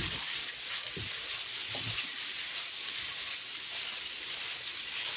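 Hands rummaging through a pile of Lego bricks: a dense, continuous clatter of small plastic pieces knocking together.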